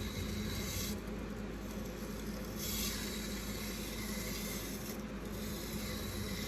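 Kitchen knife blade scraping across a wet water stone in back-and-forth sharpening strokes: a gritty hiss that brightens and dulls with each push and pull. The sound comes from raising a burr along the edge.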